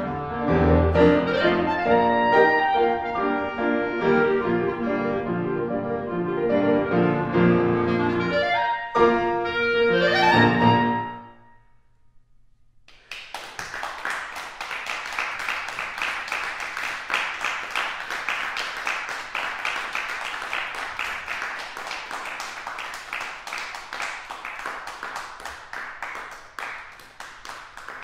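Clarinet and piano playing the closing bars of a scherzo, ending in quick rising runs about eleven seconds in. After a brief silence, an audience applauds.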